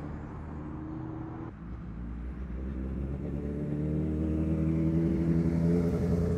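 A car engine running steadily, growing louder over the last few seconds.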